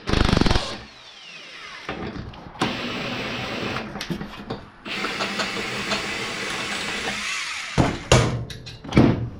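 Metal scraping and grinding as a mini bike part is spun and worked loose, with two long stretches of steady rough noise and a few sharp knocks near the end.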